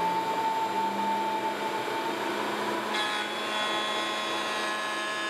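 Table-mounted router running with a bearing-guided oversize fit kit bit, cutting a shallow rabbet ledge in the edge of a curved wooden piece fed around it by hand. A steady whine with rubbing, sawing noise, whose tone changes about three seconds in.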